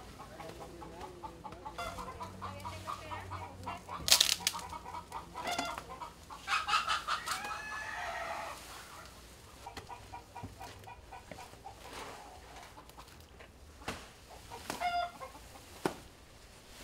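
Chickens clucking, with a rooster crowing once about six seconds in. A few sharp cracks sound over it, the loudest about four seconds in.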